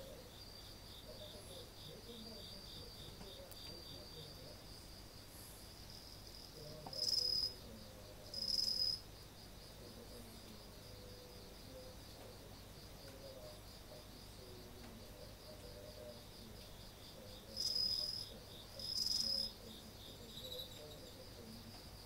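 Night insects singing: a steady high pulsed trill throughout, with two pairs of louder, half-second chirps from a nearer insect about seven and eighteen seconds in.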